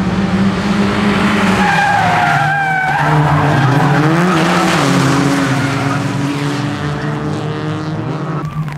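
Several small Fiat Seicento race cars running hard at high revs, with tyres squealing through a corner twice in the first two-thirds.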